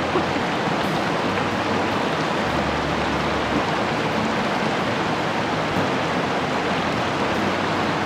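Medicine Bow River's rushing water, a steady even rush.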